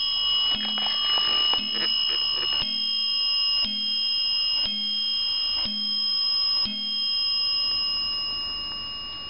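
Warmink Zaanse wall clock striking the hour on its bell, a hammer blow about once a second, seven times, each leaving a bright ringing tone. After the last stroke the bell is left to ring out and fade.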